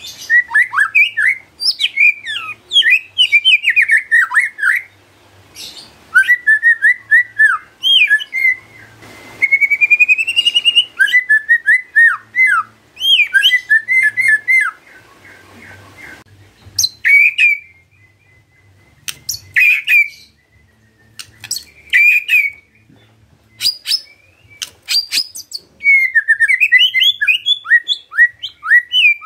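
White-rumped shama (murai batu) singing in bursts of rapid, varied whistled phrases with short pauses. About ten seconds in there is one long rising whistle. Later comes a stretch of single sharp notes before the fast phrases return near the end.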